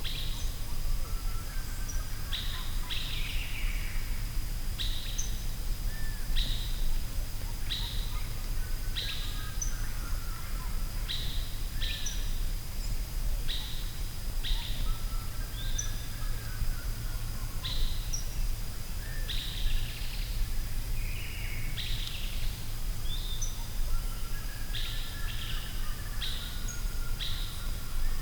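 Forest birdsong: one bird repeats a short high call about once a second, while other birds chirp more softly and lower. Underneath runs a steady low rumble and a thin, steady high tone.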